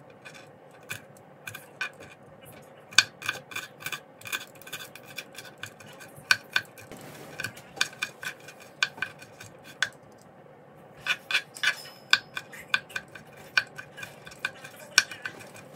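Serrated knife chopping peeled garlic cloves on a plastic cutting board: sharp, irregular knife taps, often in quick runs of several a second.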